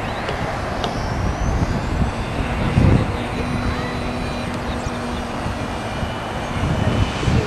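Engine of a radio-controlled P-51 Mustang model running as the plane flies past, a steady drone with a faint whine that shifts in pitch. Wind buffets the microphone with low rumbling gusts, strongest about three seconds in.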